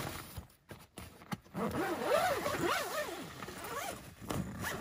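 Zipper on the canvas door of a Wild Land rooftop tent being pulled closed. Starting about a second and a half in, it makes a series of short rasping strokes, each rising and falling in pitch.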